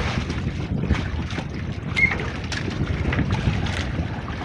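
Wind buffeting the microphone over the wash of open sea around a small outrigger boat, with a few light clicks and a brief high squeak about two seconds in.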